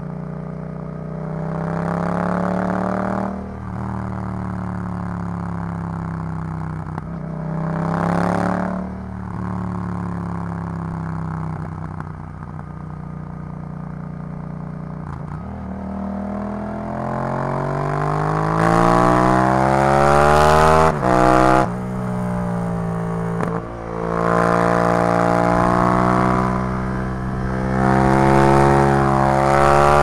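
Yamaha MT-07's parallel-twin engine through an Arrow full exhaust system, pulling hard under acceleration. Its pitch climbs and drops back several times as the rider shifts up through the gears, with the loudest, highest-revving pulls in the second half.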